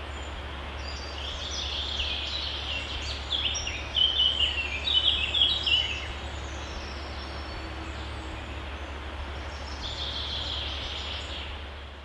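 Short, high, chattering bird calls in quick runs over a steady low outdoor rumble. The calls come in a busy cluster through the first half, loudest around four to five seconds in, and return briefly near the end.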